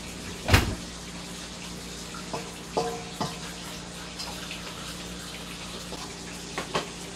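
Kitchen tap running steadily into the sink, with a sharp knock about half a second in and a few light clinks of dishes and utensils.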